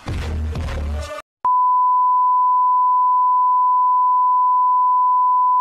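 Music plays for about a second and cuts off abruptly. A moment later a loud, steady single-pitch beep starts: the reference test tone that goes with television colour bars.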